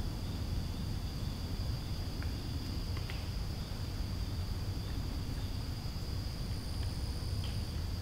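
Insects trilling in a steady, even, high-pitched drone over a low rumble, with a few faint ticks.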